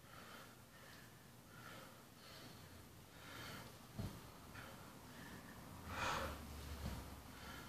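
A man breathing hard and quickly, a breath roughly every 0.7 seconds, out of breath from a long set of bodyweight squats. A single thump about four seconds in, and a louder breath about six seconds in.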